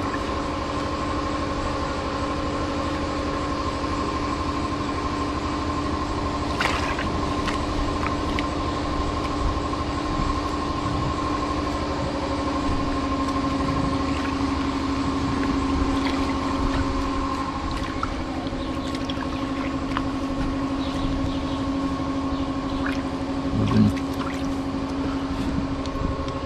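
A steady motor hum holding one pitch, with a few brief knocks, the loudest near the end.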